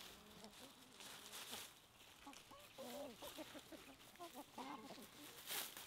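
A flock of chickens clucking softly, with many short calls overlapping. A brief scratchy noise comes near the end.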